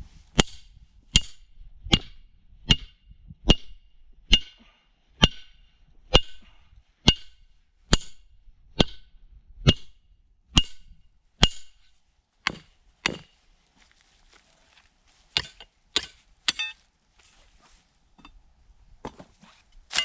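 Repeated hammer blows on metal with a ringing note. About fourteen come at an even pace of just over one a second, then a handful of scattered blows follow in the second half.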